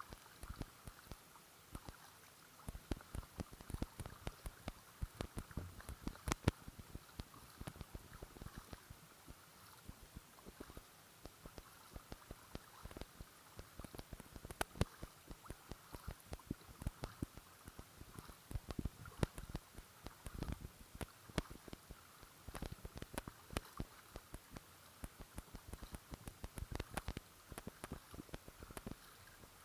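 Water dripping and splashing in many small, irregular ticks as a double-bladed paddle dips and lifts, with water lapping against the hull of a folding kayak.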